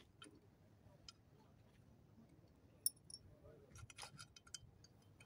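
Near silence broken by a few faint metallic clinks and ticks as small metal engine parts, a cover and its bolts, are handled. Most of the clinks fall around three to four and a half seconds in.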